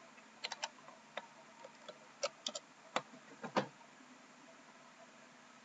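A dozen or so sharp, irregular clicks of a computer keyboard and mouse, the loudest about three and a half seconds in.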